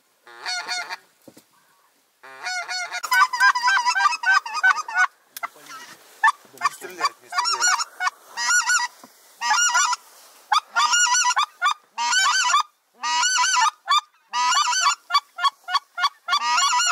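Goose call blown close by in quick series of short, loud honks, answering geese flying overhead. A short pause about a second in, then near-continuous calling in rapid bursts.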